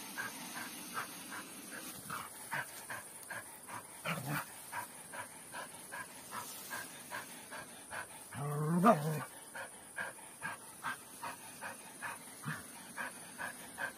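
Dog panting steadily, about two to three breaths a second. Just past the middle there is one louder sound that rises in pitch.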